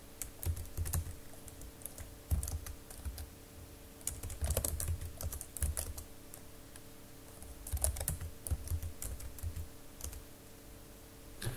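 Typing on a computer keyboard: quick runs of keystrokes in four or five bursts with short pauses between, over a faint steady hum.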